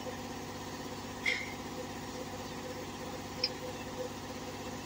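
A steady mechanical hum with two short metallic clinks, about a second in and again two seconds later, as metal parts are handled on a truck engine's cylinder head.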